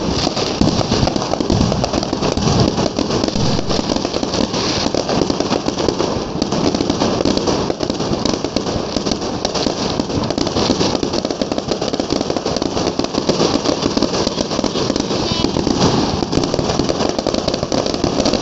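Dense, continuous barrage of fireworks and firecrackers, with countless overlapping bangs and crackles and no let-up.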